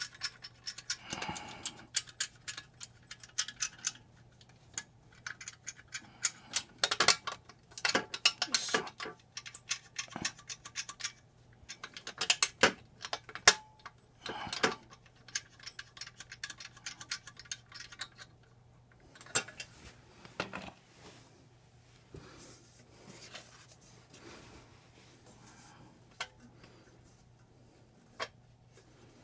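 Stainless-steel motorcycle exhaust header and its flange fittings being handled and wiggled into place by hand: irregular metallic clicks, taps and clinks in scattered clusters, over a faint steady low hum.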